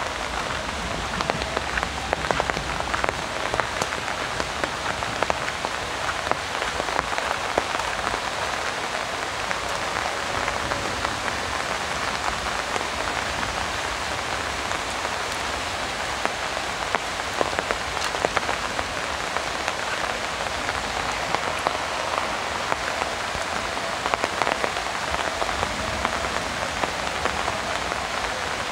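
Heavy rain falling on an umbrella: a steady, dense patter of countless sharp drop hits.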